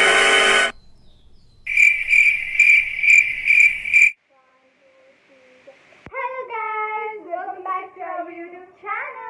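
Cricket chirping sound effect: a run of high, even chirps for about two and a half seconds that starts and stops abruptly. Before it a loud blast of music cuts off under a second in, and in the last three seconds a girl's voice sings.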